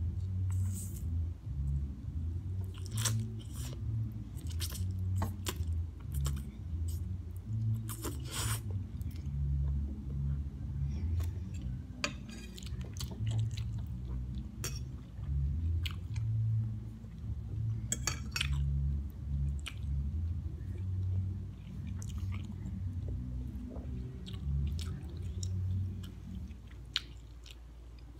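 Close-up chewing and slurping of Korean instant noodles, with wet mouth smacks and scattered sharp clicks of a fork against the plate.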